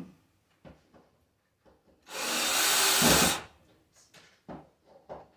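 Cordless drill/driver running once for about a second, driving a screw up through a ceiling panel into a joist, with a few faint clicks and taps around it.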